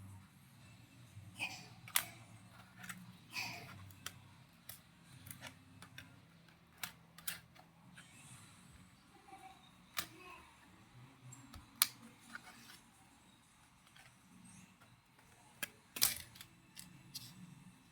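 Scattered sharp clicks and light taps of a laptop being handled during a DDR2 RAM upgrade, with the loudest clicks about two seconds in, near the middle and near the end. A faint low steady hum lies underneath.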